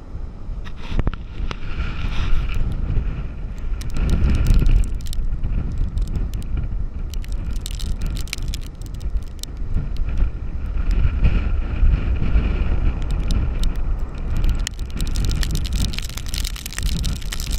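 Strong storm wind buffeting the microphone over heavy surf breaking on the beach, rising and falling in gusts, strongest about four seconds in, with scattered ticks throughout.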